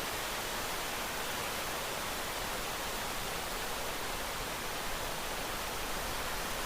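Steady rain, an even hiss with no distinct drops or changes in level.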